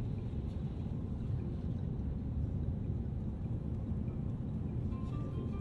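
Airbus A350-900 cabin noise on final approach: a steady low rumble of its Rolls-Royce Trent XWB engines and the airflow, heard from inside the cabin.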